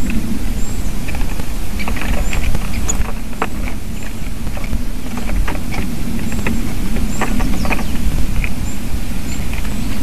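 Steady low rumble of wind on the microphone, with faint thin high bird calls and scattered short ticks over it.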